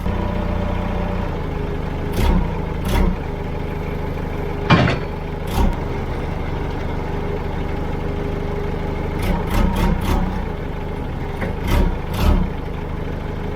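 Forklift engine running steadily, with a series of short knocks and clanks every second or two.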